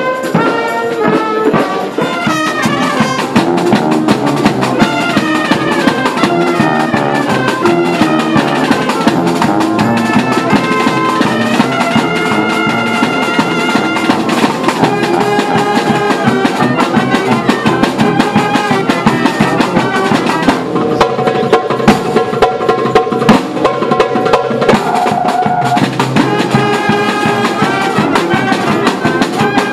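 Street brass band playing a lively tune: trumpets, sousaphones and clarinets over a bass drum and snare drum keeping a steady beat.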